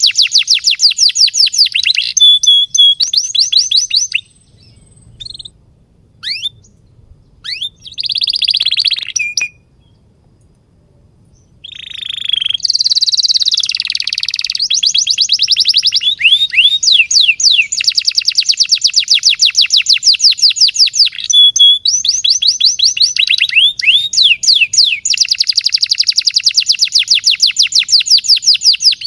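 A domestic canary singing a long song of fast trills of rapidly repeated high notes. About four seconds in it breaks off into a few short chirps and glides. From about twelve seconds in it sings long unbroken trills again.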